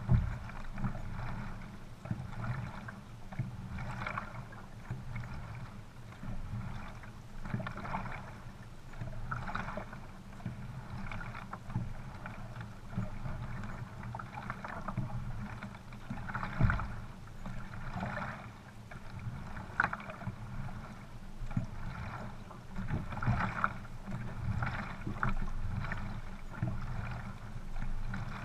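Water rushing along the hull of a narrow sprint racing boat moving at speed over a steady low rush. Paddle strokes splash about once a second.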